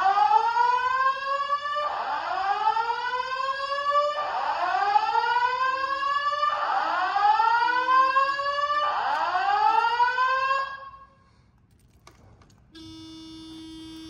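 Simplex 4100U fire alarm speakers sounding a slow whoop: a rising sweep repeated about every two seconds, five times, cut off suddenly about ten and a half seconds in as the alarm is silenced at the control panel. A short steady beep follows near the end.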